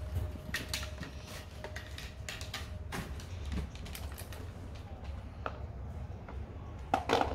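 Light plastic clicks and knocks from a Fisher-Price Little People school bus toy being handled, with a louder clatter about seven seconds in.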